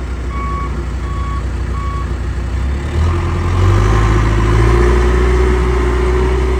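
John Deere 410J backhoe's diesel engine running, with its reverse backup alarm beeping about every two-thirds of a second, four times, then stopping. Three to four seconds in, the engine revs up and holds a higher, louder note.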